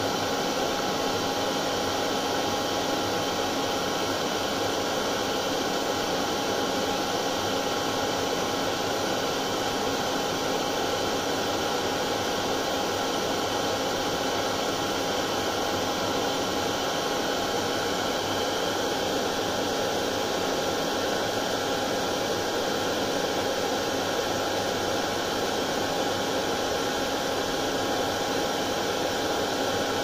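Hair dryer running continuously, a steady airy rush with a faint constant whine.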